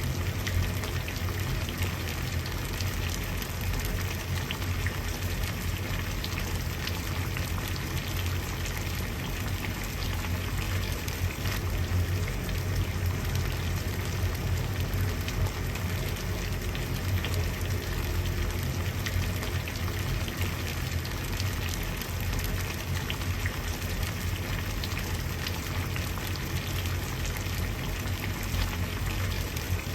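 Water at a steady boil, a continuous dense bubbling with many small pops over a low, even rumble.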